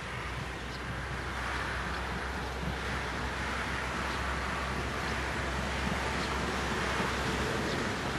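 Approaching narrow-gauge steam train on the Lößnitzgrundbahn: a steady rumble growing slowly louder, with wind on the microphone.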